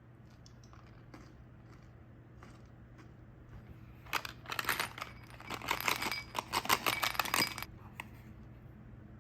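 Choco Ball chocolates rattling and clinking against a hard container, a dense run of small sharp clicks with a slight ring lasting about three and a half seconds, after a few faint ticks of handling.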